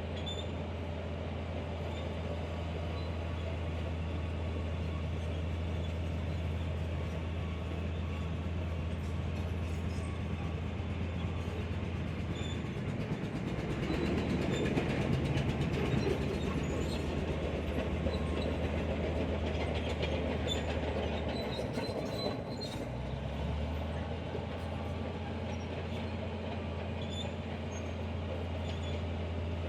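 Heavy diesel earthmoving machine, a bulldozer or dump truck, running steadily at the sand fill. Its note dips twice, and its rumble grows louder for a few seconds midway as it works.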